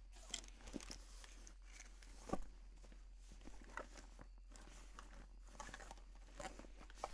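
Faint footsteps and rustling of someone moving quietly through a room: scattered soft taps and thuds over a low steady hum, with one louder thud about two and a half seconds in.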